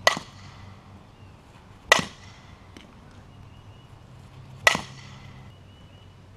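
Fastpitch softball bat striking softballs off a batting tee, three sharp hits, each with a short ringing ping.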